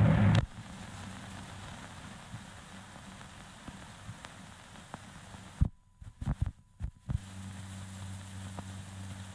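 Faint hiss and crackle of an old film soundtrack. About six seconds in there is a brief dropout with a few sharp pops, and a steady low hum follows it.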